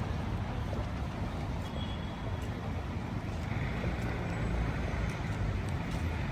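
City street traffic: a steady low rumble of passing vehicles, with a few faint clicks on top.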